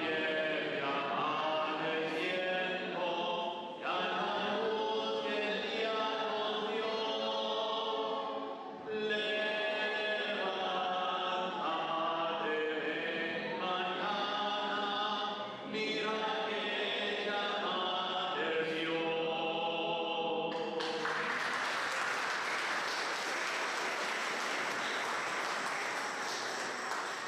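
A choir sings a slow hymn in phrases of a few seconds each. About 21 seconds in, the singing gives way to a steady, dense rushing noise.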